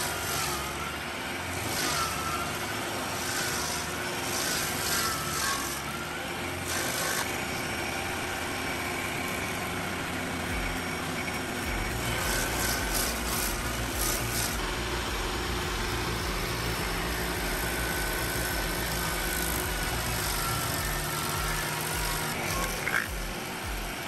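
Bandit SG-75 stump grinder's 74-horsepower engine running under load while its cutting wheel grinds into a stump. A wavering whine sits over a steady engine noise, broken by repeated short bursts of rough chipping noise.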